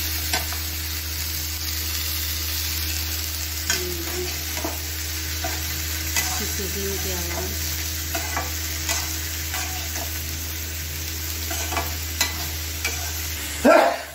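Chopped ridge gourd sizzling in hot mustard oil in a metal kadhai while a metal spatula stirs it, with scattered scrapes and clinks of the spatula against the pan. A louder clatter comes near the end, and the sizzle drops away just after it.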